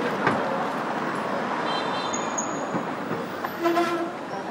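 City street ambience: steady traffic noise, with a short steady tone about three and a half seconds in.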